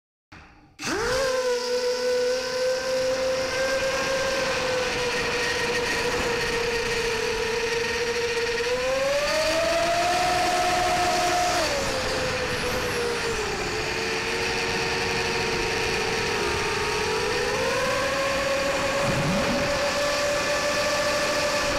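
MB Epic Mini quadcopter's four brushless motors and propellers whining in flight, as picked up by its onboard camera. The sound cuts in abruptly under a second in. Its pitch shifts with the throttle: it rises about nine seconds in, drops around twelve, and climbs again near eighteen.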